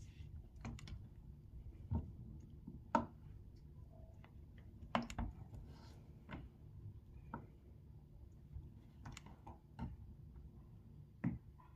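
Kitchen knife cutting a block of cheese and knocking on a plastic cutting board: irregular clicks and taps, the loudest about three seconds in.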